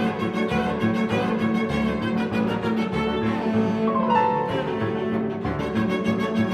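Instrumental background music: bowed strings such as cello, with piano, over a steady beat.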